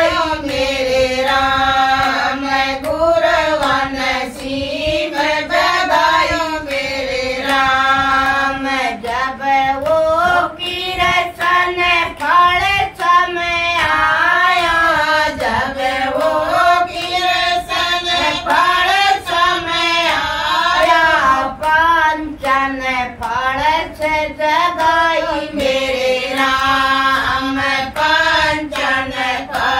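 A group of women singing a Hindi devotional bhajan together in one continuous melody, with hand claps keeping time.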